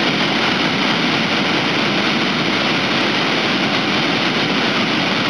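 Waterfall and rapids on a wide river: a steady, loud rush of falling and churning water.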